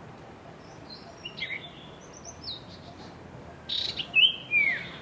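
Small birds chirping: short whistled chirps that slide in pitch. A few faint ones come in the first half, then a louder run of chirps in the last second or so, over a steady background hiss.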